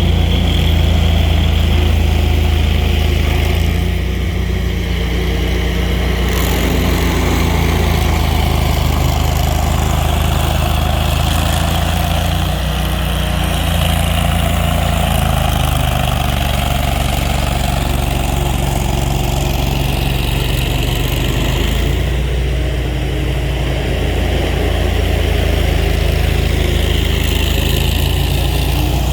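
A large engine running steadily at an even speed, with a deep, constant hum and no changes in pitch.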